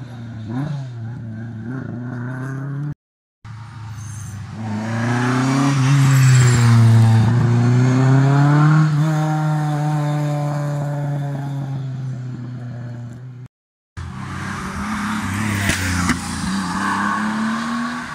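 Historic rally cars at full throttle on a special stage, engines revving and rising and falling in pitch through gear changes as each car approaches and passes. The sound comes as three short takes, cut apart by two brief silences; the loudest pass is in the middle.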